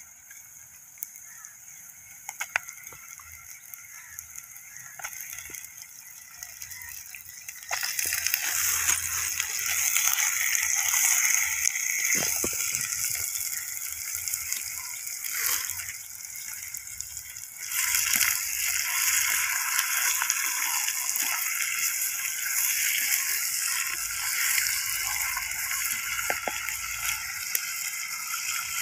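Chicken pieces sizzling in hot oil with onions in a clay pot, with scattered pops and crackles. The sizzle gets much louder about eight seconds in, and louder again a little after the middle.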